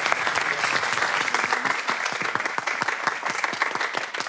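A film crew applauding at the wrap of a shoot, many hands clapping in a dense patter that gradually thins out and quietens.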